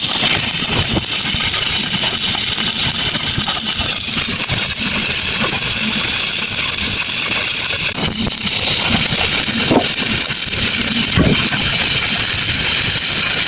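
Electric arc welding on thin pipe: a steady, even hiss with faint crackle.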